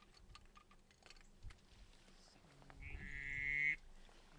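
A duck call blown in one long, buzzy, quack-like note, about a second long, that swells louder and stops sharply.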